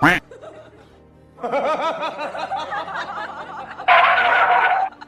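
Laughter over background music, opening with a sharp loud hit. About a second before the end there is a loud burst.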